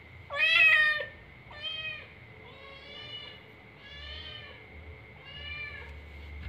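Domestic cat meowing five times in a row, the first call loud and the next four softer and drawn out: a cat asking to be let in through a closed door.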